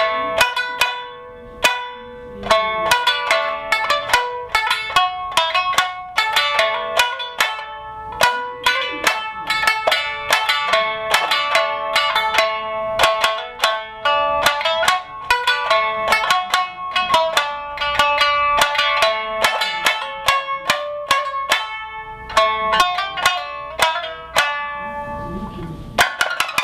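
Amami shamisen, a three-stringed snakeskin lute, playing a quick solo melody of plucked notes, several a second, each ringing briefly.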